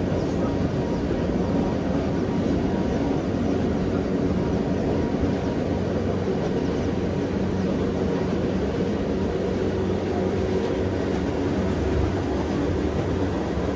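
Electric rack-railway train of the Gornergrat line running steadily, with a constant low motor hum over its rolling noise.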